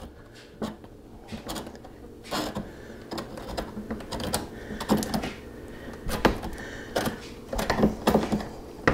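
A small flat metal tool scraping and pressing wire repair mesh into the corner of a plastic car bumper, with the bumper being handled: a run of irregular scrapes and clicks.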